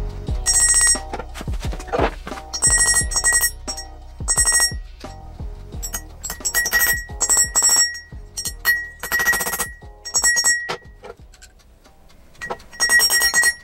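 Hammer blows on metal parts resting on a steel anvil, driving the hex key into the tool head. The blows come in quick runs with short pauses between them, and each run rings with a high metallic tone.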